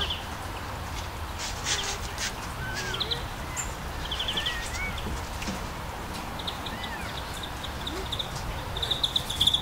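Young puppies whimpering and squeaking in short, scattered cries that rise and fall, over a steady low background hiss, with repeated short, fast chirping trills.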